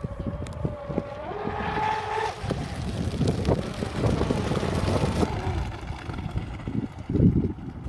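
Pro Boat Zelos 48 RC speedboat's brushless electric motors whining as it runs across the pond. The whine rises in pitch about a second and a half in, then gives way to a broad rushing hiss of the hull and spray as the boat passes, with wind rumbling on the microphone.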